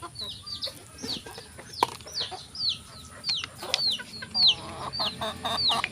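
Chickens peeping and clucking: a run of high, short, falling peeps, about two or three a second, with lower clucking in the second half and a few light clicks.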